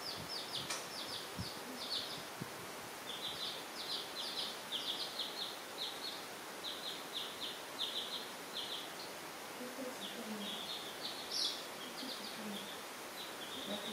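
Baby chicks peeping: a continuous stream of short, high peeps, several a second, with brief pauses.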